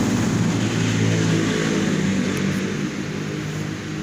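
A motor or engine running steadily with a low hum, easing a little near the end.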